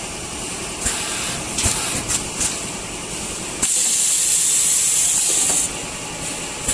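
Automatic liquid packing machine running, with sharp clicks and knocks from its mechanism. A loud, steady hiss comes on about halfway through and stops after about two seconds.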